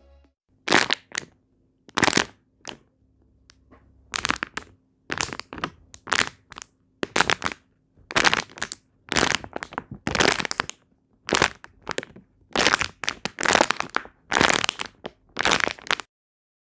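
A plastic water bottle filled with soap, water and paint is squeezed over and over as a squishy fidget toy. Each squeeze gives a short crackle of the plastic, about twenty in all at an uneven pace.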